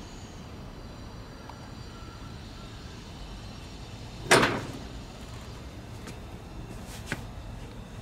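The hinged sheet-metal electrical box of an LG system air conditioner's outdoor unit swung open by hand, giving one sudden short clunk a little past halfway, with a smaller click near the end. A steady low background rumble runs underneath.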